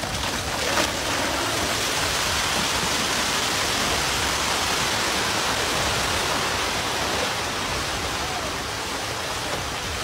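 Rockslide: rock and earth pouring down a cliff face onto a road, heard as a continuous rushing noise that builds about a second in and holds steady.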